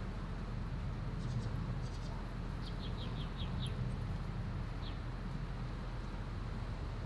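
A small bird chirping: a quick run of about six short, high chirps about three seconds in, and one more a little later. Under it runs a steady low rumble.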